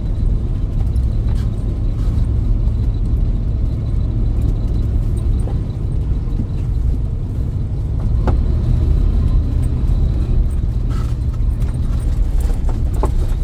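A Jeep running along a rough dirt track, heard from inside the cabin: a low, steady drone of engine, drivetrain and tyres. A few short rattles or knocks come through, one about eight seconds in and a couple near the end.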